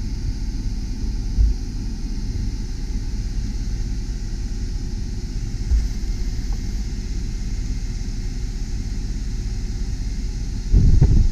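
Mercedes ML320 CDI's 3.0-litre V6 turbodiesel idling steadily, heard from inside the cabin with the air-conditioning blower hissing. Two brief low thumps come about 1.5 seconds and 6 seconds in, and louder low knocks start near the end.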